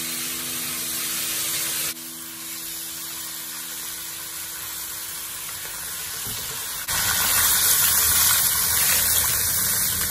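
Whole sea fish frying in hot oil in a wok, a steady sizzling hiss. About seven seconds in the hiss suddenly turns louder and fuller as water goes into the pan.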